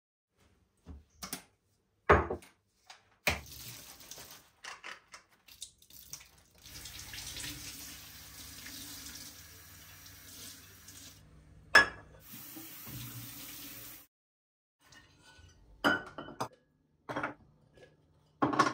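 Kitchen mixer tap running into the sink for about seven seconds in the middle while glass jars and bottles are rinsed under it. Before and after come sharp knocks and clinks of glassware and lids set down against the sink and counter.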